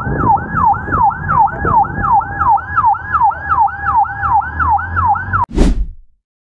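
Emergency vehicle siren in a fast yelp, about three rising-and-falling sweeps a second, over a low road rumble. It cuts off about five and a half seconds in with a short whoosh.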